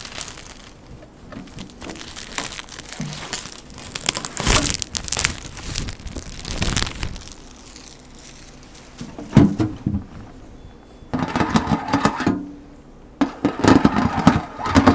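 Plastic shrink wrap crinkling and crackling as it is peeled and pulled off a board game box, in irregular bursts.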